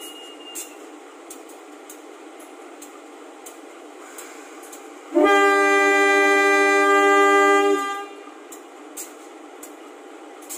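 Indonesian train air horn sounding once: a sudden, loud chord of several steady notes held for about two and a half seconds, starting about halfway through, over a steady background hiss.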